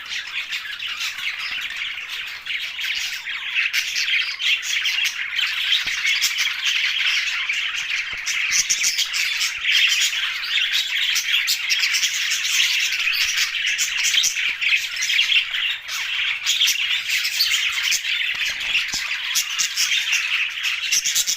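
A flock of budgerigars chattering and squawking together, many overlapping chirps and squawks without a break.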